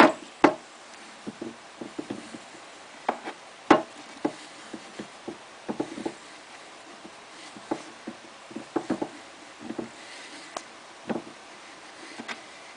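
Irregular clicks and knocks of hands handling and working the parts of a Smart Parts Vibe paintball marker during disassembly, with the sharpest knocks at the very start, about half a second in and near four seconds in.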